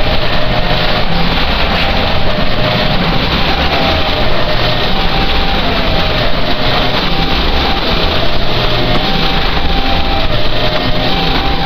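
Harsh noise music: a loud, unbroken wall of dense distorted noise, with faint wavering tones rising and falling in the middle of it.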